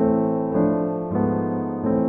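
Background piano music, soft and slow: a new chord struck about every half to three-quarters of a second, each ringing and fading.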